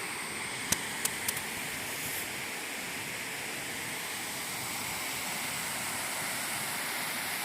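Steady rush of flowing water, with a few short clicks about a second in.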